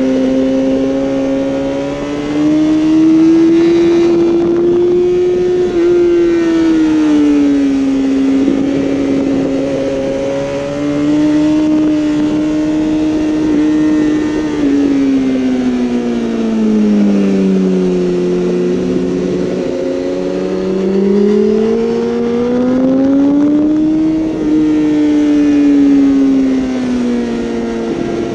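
2012 BMW S1000RR's inline-four engine at high revs on track. The note climbs under acceleration, falls steadily about halfway through as the bike slows, then climbs again and eases off near the end.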